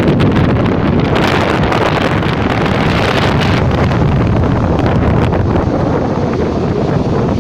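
Strong wind buffeting the microphone: a loud, continuous rumbling blast of wind noise that swells and flutters without letting up.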